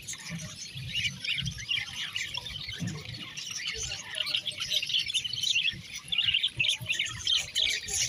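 A flock of budgerigars chattering continuously, with many quick chirps and squawks overlapping.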